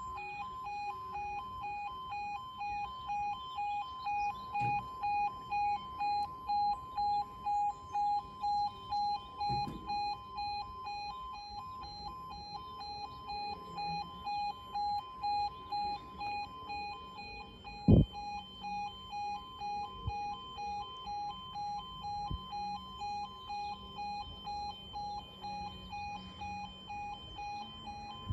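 Level crossing warning alarm sounding: two tones pulsing evenly, about twice a second. One sharp knock about two-thirds of the way through.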